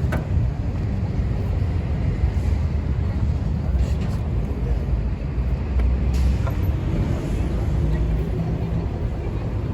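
Steady low rumble of background noise, with a few sharp clicks: one at the start, one about four seconds in and one about six seconds in.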